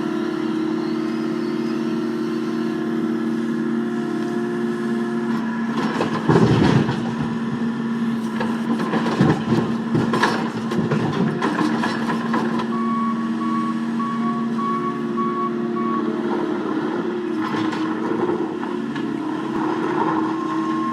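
A machine hums steadily. Loud knocks and clattering come in a cluster about a third of the way through, and a reversing beeper beeps repeatedly for a few seconds past the middle.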